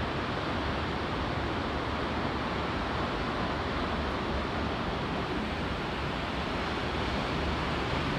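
Steady outdoor rushing noise, even throughout, with no distinct sounds standing out.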